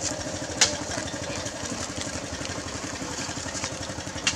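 A small engine idling steadily, with a sharp click about half a second in.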